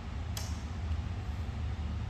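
A steady low hum, with one short, sharp snap about a third of a second in.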